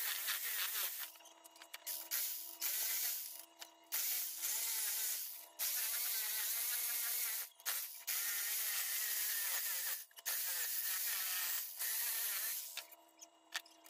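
Corded jigsaw cutting a wooden plank, its motor whining as the blade saws through the wood. It runs in bursts with several brief stops and restarts.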